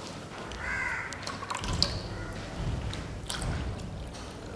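Water poured from a steel tumbler into a plastic bowl that already holds some water, splashing in near the end. A short call sounds about a second in.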